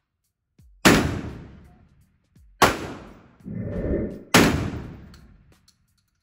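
Three shots from a semi-automatic 12-gauge shotgun, evenly spaced about a second and three-quarters apart, each ringing off the walls of an indoor range as it dies away.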